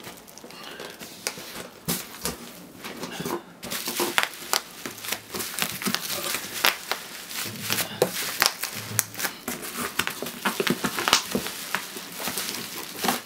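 Bubble wrap and plastic packaging being pulled about and crumpled by hand: an irregular run of crinkles and crackles.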